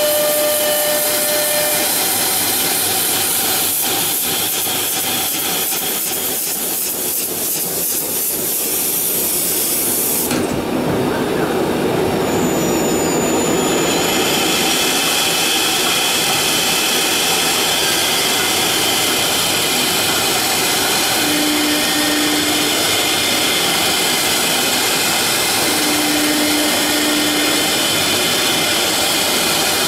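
CNC router spindle running at high speed while a V-bit carves grooves into a wood panel: a steady whine and hiss of cutting that changes abruptly about ten seconds in.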